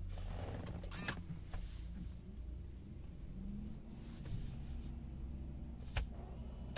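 Quiet low hum inside the cabin of a 2018 Opel Ampera-e electric car, with a sharp click about a second in and another near the end.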